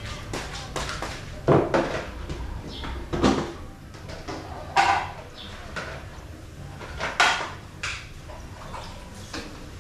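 Several separate knocks and clatters of a plastic bucket and washing gear being handled and set down on wet tiles while a dirt bike is washed, the loudest about one and a half seconds in and again about seven seconds in.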